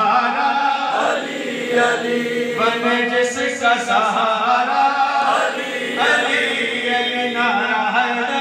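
Men chanting a qaseeda in praise of Imam Ali in Urdu, in long drawn-out phrases with held notes.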